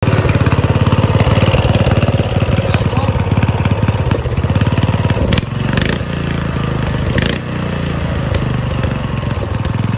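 Briggs & Stratton engine of a Murray riding lawn mower running fast under a foot throttle pedal, its speed and loudness dropping back about five and a half seconds in and again about seven and a half seconds in, with short clatters at each change.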